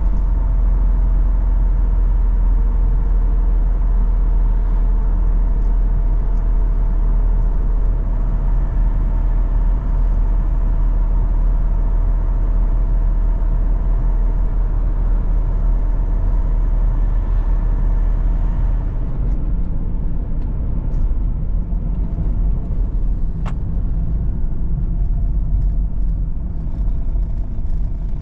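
Opel Omega B 2.2 DTi four-cylinder engine and road noise, heard from inside the car while driving: a steady rumble with a faint engine hum. After about nineteen seconds the hum fades and the sound grows a little quieter, and a single sharp click comes a few seconds later.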